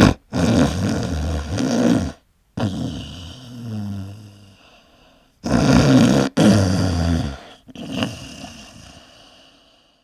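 Low, rough growling sounds in several bursts of one to two seconds each, broken by abrupt cuts to silence.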